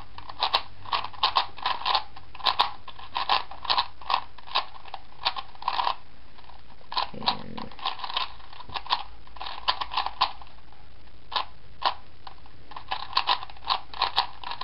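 Plastic 4x4 Rubik's Cube layers being turned quickly by hand: rapid irregular clicks and clacks in short runs, with a pause about six seconds in. The turns work through a 4x4 parity algorithm and the last steps of the solve.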